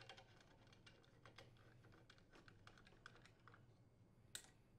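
Faint, irregular light clicking of a hand nut driver turning and seating a screw in the sheet-metal cylinder head shield of a small engine, with one sharper click near the end.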